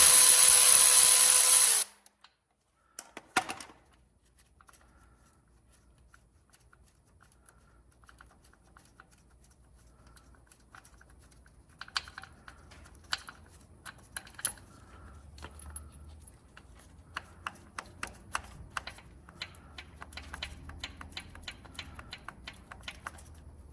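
A power tool whines at full speed for about two seconds and cuts off suddenly, backing out the 8 mm timing-chain tensioner bolts on a Ford Coyote V8. Then come faint, irregular light metallic clicks and taps as the long bolts are worked out and handled, growing busier about halfway through.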